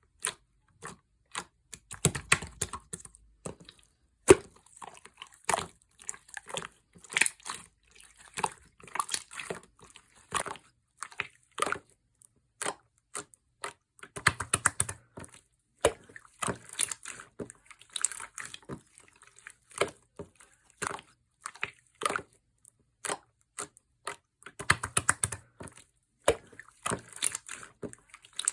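Blue clear slime being squeezed and stretched by hand, making irregular runs of wet, sticky clicks and pops, the sharpest snap about four seconds in.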